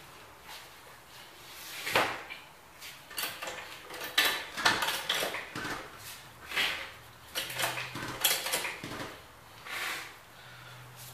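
Irregular clunks, knocks and scrapes of a removed car wheel and tools being handled and set down on a concrete garage floor, in a run of separate hits, the loudest about two, four and eight seconds in.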